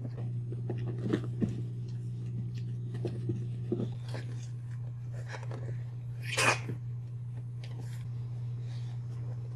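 Boxer puppies and an adult boxer playing: scattered small, short dog noises, with one short, sharper and louder sound about six and a half seconds in, over a steady low hum.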